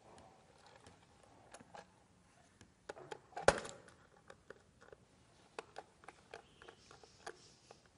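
Scattered light clicks and taps of a wire link being fitted to the screw terminals of a switch and a three-pin socket on a wooden board, with one sharper knock about three and a half seconds in.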